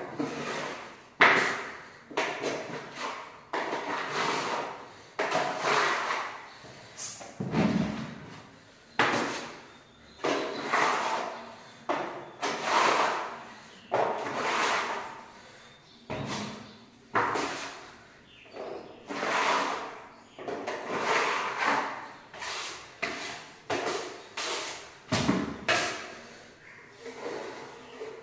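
Steel putty blade scraping a second coat of wall putty across a plastered wall, in repeated strokes a little over one a second, each starting sharply and fading away.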